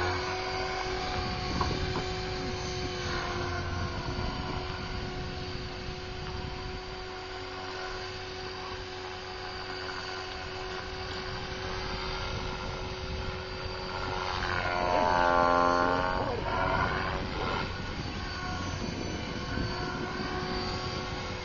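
Align T-Rex 500 flybarless electric RC helicopter in flight: a steady whine from its electric motor and rotor. About fifteen seconds in it grows louder for a couple of seconds while the pitch dips and comes back up.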